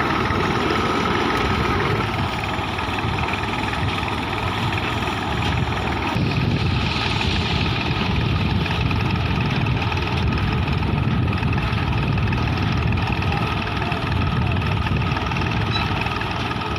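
Engine of a tubewell boring rig running steadily, with a dense low rumble and a faint steady whine above it.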